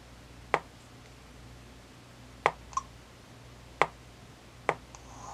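Stylus tapping the touchscreen of an Apple Newton MessagePad 120: four short, sharp taps a second or two apart, over a faint steady hum.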